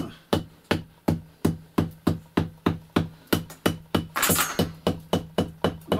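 A hammer striking the plastered brick face of a masonry stove in a steady run of sharp knocks, about three a second, with a brief hiss about four seconds in. The stove is being tapped to find by the sound where a hollow flue channel runs behind the plaster.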